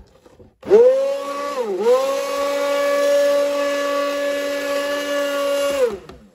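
Electric immersion (stick) blender running in a bowl of thick soap mixture, a steady motor whine that dips briefly in pitch under load near the start, then recovers and stops after about five seconds.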